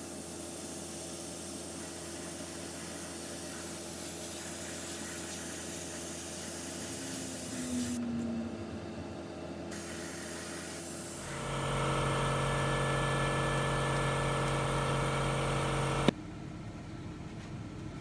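Airbrush spraying paint with a steady hiss, pausing briefly about eight seconds in. Later a small motor, fitting an airbrush air compressor, hums steadily for about five seconds and cuts off with a click.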